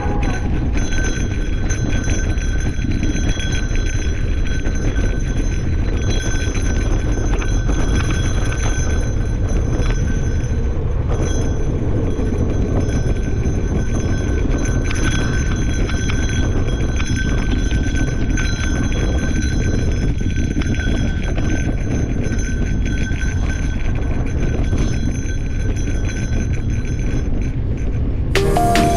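Mountain bike rolling over a dirt singletrack trail: a steady low rumble of tyres and wind noise, with constant fine rattling from the bike and a faint steady high buzz.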